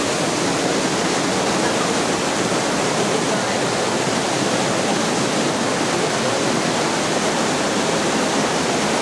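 Steady, loud rush of water pouring down a waterfall, without a break.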